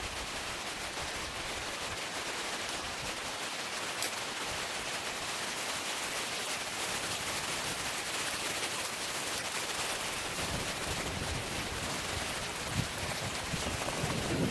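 Steady outdoor hiss of wind, with low gusts buffeting the microphone in the last few seconds and a single faint click about four seconds in.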